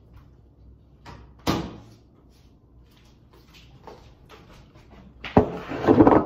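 A sharp clunk of a microwave door about a second and a half in, then a ceramic bowl set down on a wooden table close by, with a knock and a short clatter of handling near the end, the loudest part.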